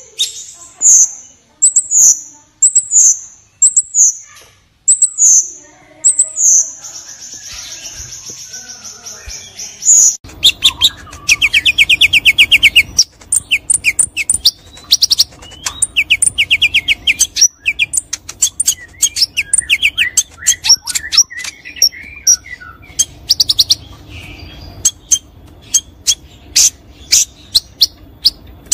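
White-rumped shama (murai batu), the Bornean type, singing loudly: a run of high, down-slurred whistles about once a second, then a fast high trill. About ten seconds in, the song changes to rapid rattling trills and many sharp chips over a faint low hum.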